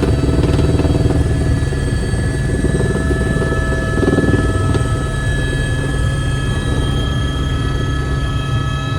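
Helicopter running steadily: a fast low thudding from the rotor, with the engine's steady high whine over it.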